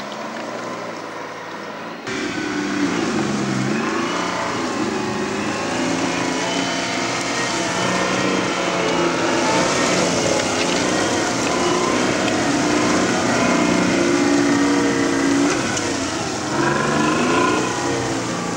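Tracked armoured vehicle's engine running hard as it drives over dirt, getting louder about two seconds in, its pitch dipping and rising again twice as the driver eases off and accelerates.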